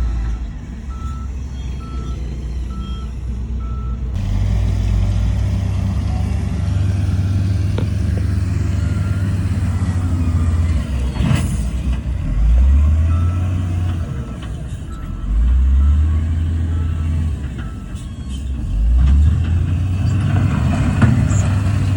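Diesel engine of heavy earthmoving equipment running and revving up three times in the second half, with a reversing alarm beeping about twice a second during the first few seconds and again in the middle. There is a single sharp knock just past halfway.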